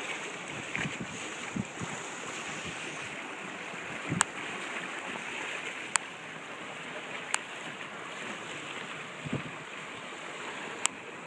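Water rushing and splashing along the hull of a small timber sailing yacht under way, a steady wash with a couple of low slaps. Four sharp clicks stand out over it.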